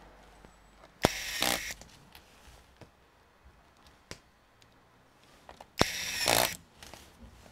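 Small electric screwdriver running in two short bursts, about five seconds apart, each starting with a sharp click, as it drives the screws of the laptop's bottom panel.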